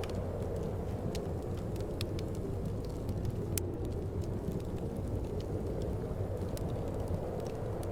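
Steady low rush of wind with a wood fire crackling over it, scattered sharp pops and ticks at irregular intervals.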